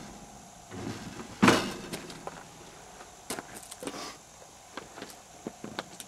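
One sharp bang about a second and a half in, then scattered light clicks and knocks of handling as a FAL-pattern rifle is left on its bipod on the bench and the shooter gets up.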